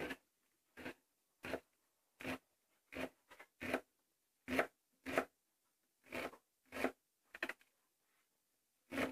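Kitchen knife slicing green onions on a cutting board: a string of short separate cuts, roughly one or two a second, with a pause of about a second and a half near the end.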